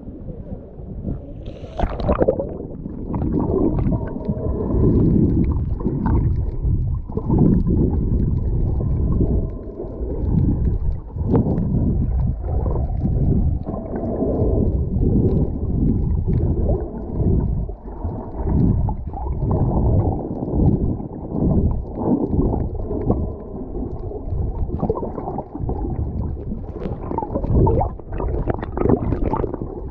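Muffled underwater surging and rumbling of water moving around a swimming snorkeller, in irregular surges. A brief splash comes about two seconds in.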